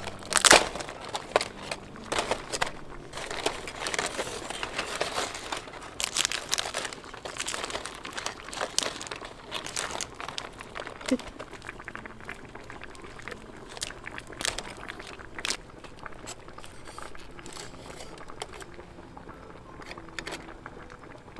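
Steamed blue crab shell being cracked and pulled apart by hand, with irregular crackling and crunching snaps. The loudest crack comes about half a second in, and the snaps grow sparser over the second half.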